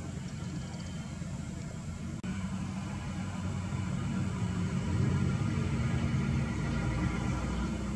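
Heavy diesel engine running low and steady, with an abrupt cut about two seconds in, after which it grows louder.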